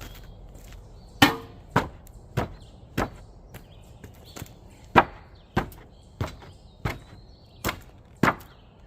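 Ten sharp hammer blows, about one every half second or so, in a run of four and then, after a short pause, a run of six. The first blow rings briefly.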